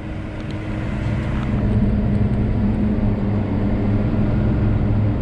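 Versatile Nemesis tractor's 6.7-litre Cummins diesel engine running steadily as the tractor drives along, heard from inside the cab; it gets a little louder over the first two seconds.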